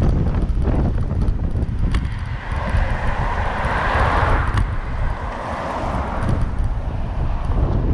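Strong wind buffeting an action camera's microphone on a moving bicycle, a loud steady rumble, with a passing vehicle swelling and fading in the middle.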